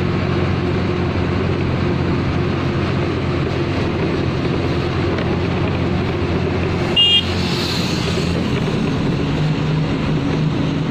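Road vehicle engine running steadily with road noise. A short horn toot comes about seven seconds in.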